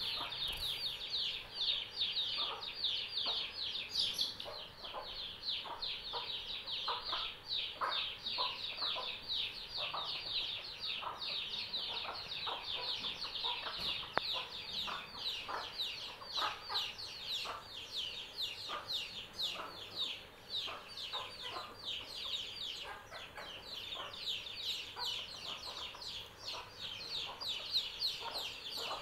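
Chicks peeping continuously, a rapid stream of short, high, falling peeps, with a mother hen clucking at intervals beneath them.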